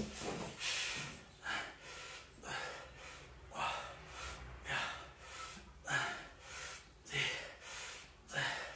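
A man breathing hard and rhythmically while doing straight-legged inverted rows under a table. There is a short, hissing breath about once a second, in time with each pull.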